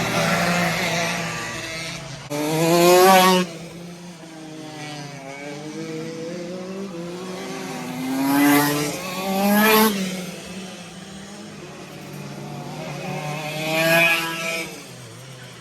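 Two-stroke shifter kart engines running on track, the pitch climbing and dropping as the karts rev and shift, with loud pass-bys about three, eight-and-a-half, ten and fourteen seconds in and the engines fading quieter between them.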